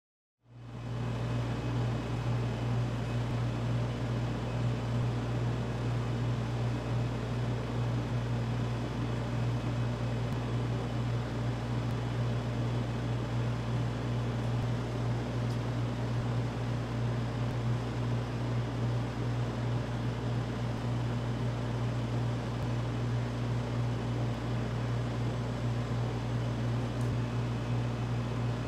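A small motor or fan running steadily with a low hum, cutting in suddenly about half a second in.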